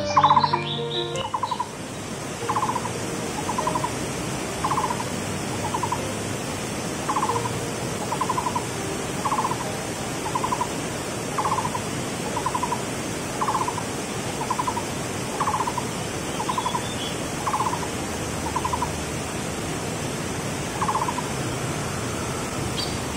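Waterfall rushing, a steady hiss of falling water, with a short trilled animal call repeating about once a second over it. Music fades out in the first second or so.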